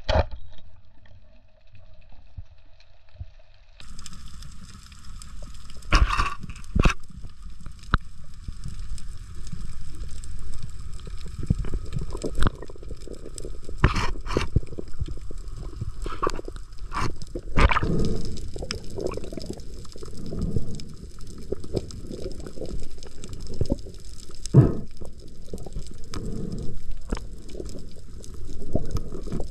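Underwater water noise heard through a diver's camera: one sharp snap at the very start, then water gurgling and sloshing with many scattered clicks and knocks as a speared fish is handled on the spear shaft and line.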